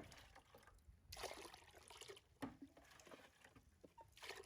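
Faint wet rubbing and rustling as a damp paper wipe is worked over a baby monkey's face, in a few short bursts with a click between them.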